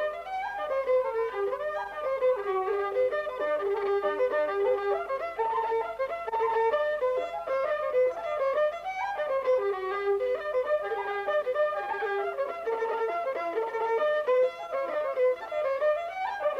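Instrumental music with a quick violin melody moving in short, rapid notes.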